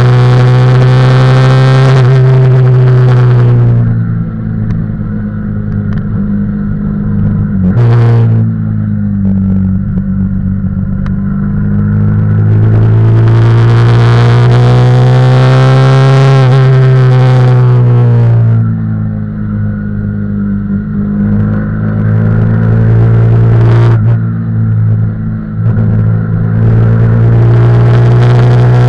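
Yamaha YZF-R15's single-cylinder engine heard on board at racing speed, running hard at high revs with the pitch climbing and falling through the gears. Twice the throttle is shut and it drops quieter for about four to five seconds, about four seconds in and again past halfway.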